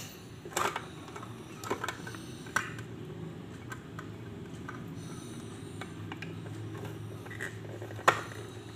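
Handheld can opener being cranked around the rim of a tin can: the mechanism ticks and clicks as its cutting wheel turns, with a few sharp clicks about a second apart at first and a louder click near the end. The opener is struggling, and the cook fears it is about to break.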